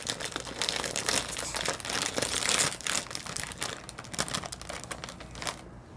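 Crinkly snack-chip bag rustling as it is pulled open and handled, a dense crackling that is loudest about two and a half seconds in and stops about half a second before the end.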